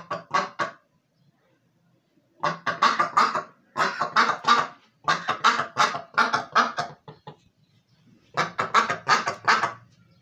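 Pekin duck quacking in quick runs of short quacks. There are five runs: one at the start, three close together from about two and a half to seven seconds in, and a last one near the end, with pauses of a second or two between them.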